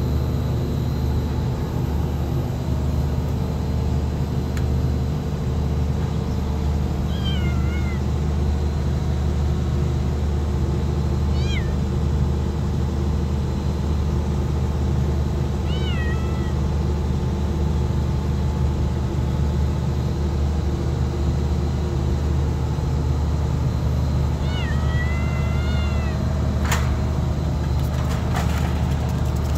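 Domestic cats meowing, a few short calls spaced several seconds apart and a longer one near the end, over a steady low rumble. A few sharp clicks near the end.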